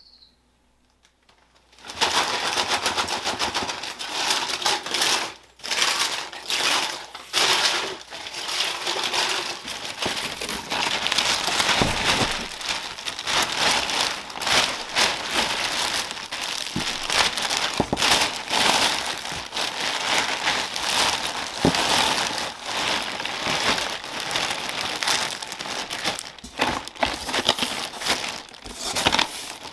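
Thin plastic bag full of dried shiitake mushrooms crinkling and crackling as hands handle it and press it down into a cardboard box, starting about two seconds in.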